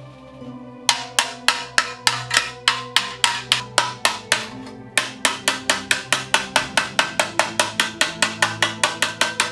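Rapid hammer blows on sheet steel, about three a second, then after a short pause faster at about five a second, over background music.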